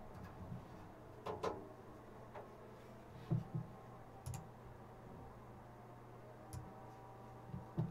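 Scattered soft knocks and clicks from handling at a computer desk, over a steady low hum. The loudest is a low thump a little over three seconds in.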